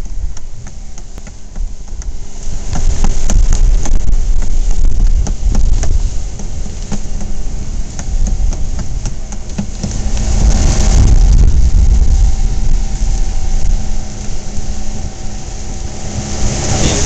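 A boat's engine running steadily under a loud, fluctuating low rumble, with scattered clicks and knocks throughout.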